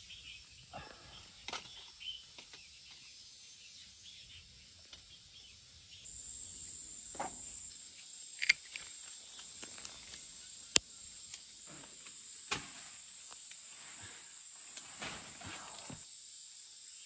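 Insects chirring in a steady high buzz that sets in about six seconds in. Under it are rustling leaves and vines, with a few sharp snaps or clicks scattered through.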